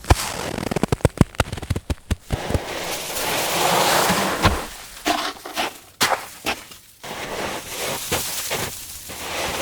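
A sequence of snow sound effects. First a quick run of sharp crunching, crackling hits, then a swelling hiss of snow being pushed, then scattered crunches and thuds, and near the end a softer crackling hiss.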